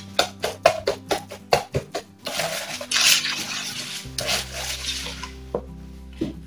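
Wooden stirring stick knocking and scraping against a plastic bowl while mixing a clumpy white paste: a quick run of sharp knocks in the first two seconds, then longer scraping strokes.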